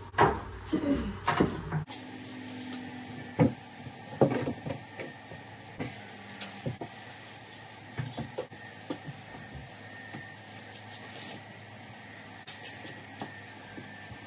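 Irregular knocks and taps from handling a sheet of Formica laminate on a countertop, loudest in a quick cluster at the start, then scattered and lighter.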